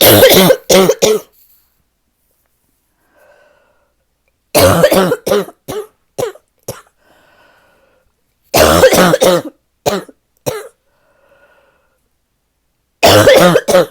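A person's deep barking cough in four fits of several hard coughs each, with faint breaths between the fits. It is a lingering chest cough that shows no sign of getting better, with aching lungs.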